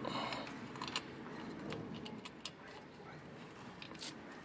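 Faint, scattered metallic clicks and taps of a brake shoe hold-down spring and pin being handled and pushed into place on a drum brake backing plate.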